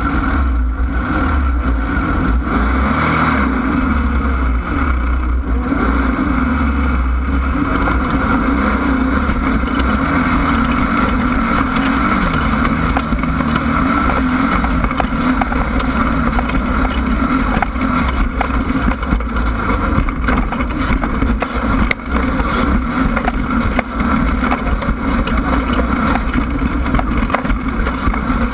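Class 1600 desert race car's air-cooled Volkswagen engine running hard under load, its pitch rising and falling with the throttle over a constant low rumble, with frequent small knocks and rattles.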